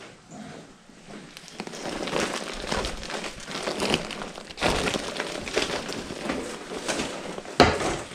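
Rustling and crinkling handling noise with scattered knocks, growing busier about a second and a half in, and a sharp knock near the end.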